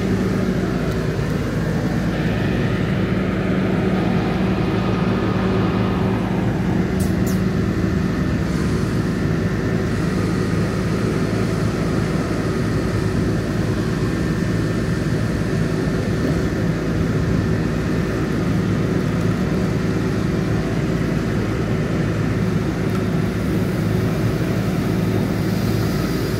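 Heavy truck engine running steadily at a raised, even speed, as when a wrecker's engine drives its winches under load. A couple of faint metallic clicks about seven seconds in.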